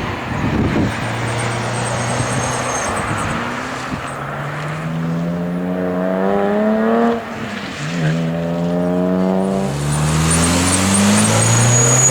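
Car engine accelerating hard: the engine note climbs steadily, drops abruptly at each gear change about seven and ten seconds in, then climbs again, over a rushing of tyre and road noise.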